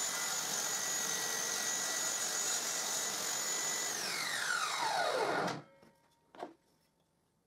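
Homemade table saw running at full speed with a steady high whine. About four seconds in it is switched off and winds down in falling pitch, going quiet about a second and a half later. One knock follows shortly after.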